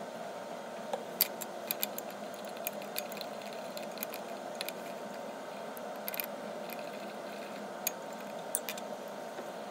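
Light, irregular glassy clicks and ticks as a glass stirring rod knocks against a glass beaker sitting in ice, while the cooling alum solution is stirred to crystallise. A steady background hum runs underneath.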